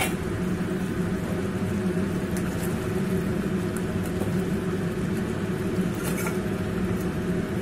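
Chicken and potato curry boiling in a metal pot on a gas burner, a steady low rumble of bubbling. There is a sharp click as the lid comes off at the start, then a metal spatula lightly scrapes and clinks against the pot as the curry is stirred.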